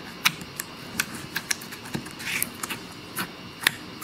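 Firm clear slime in a plastic cup being pressed and poked with a finger, giving irregular sharp clicks and pops, about two or three a second, with a brief softer squelch about halfway through.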